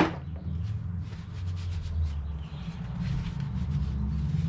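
Light scraping and rubbing with faint scattered ticks as metal suspension parts are handled and worked loose, over a steady low hum.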